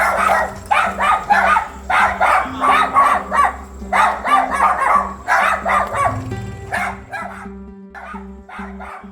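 A dog barking rapidly and repeatedly over background music with a steady, stepping bass line. The barking thins out and gets quieter after about seven seconds.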